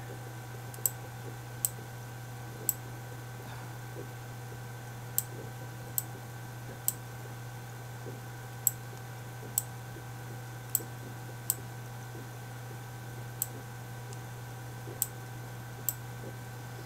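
Computer mouse clicking: about fourteen short single clicks at uneven intervals over a steady low electrical hum.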